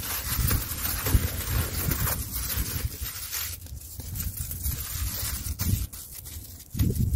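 Aluminium foil crinkling as a potato is wrapped by hand, dense for the first three seconds or so and then thinning out, over a low rumble of wind on the microphone.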